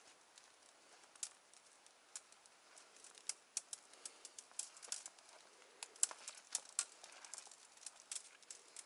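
Faint, irregular crackling and clicking of spruce twigs and branches being pushed and handled, sparse at first and thicker from about three seconds in.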